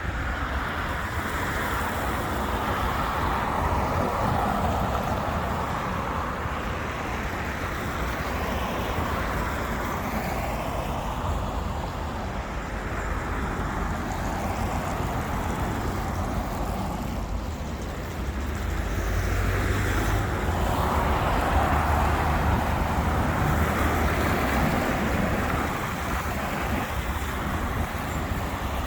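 Road traffic on a city avenue: a continuous wash of passing cars that swells and fades as vehicles go by, with a low rumble that grows loudest after about twenty seconds.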